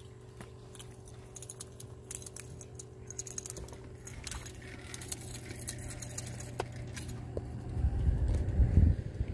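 Spinning fishing reel being cranked as a small fish is reeled in, a run of fine rapid clicks and ticks. A louder low rumble comes near the end as the fish is lifted from the water.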